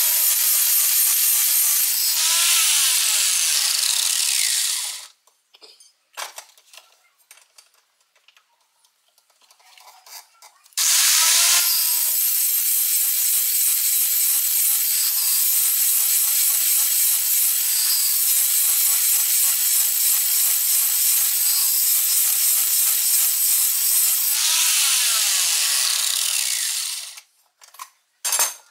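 Angle grinder grinding the cutting edge of a steel lawn mower blade held in a sharpening jig. It grinds for about five seconds and goes quiet with a few light clicks and taps. It then starts again with a rising whine, grinds steadily, and winds down to a stop near the end.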